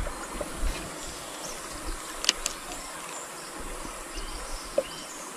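Steady buzzing drone of tropical forest insects along the river, with two short sharp clicks a little after two seconds in.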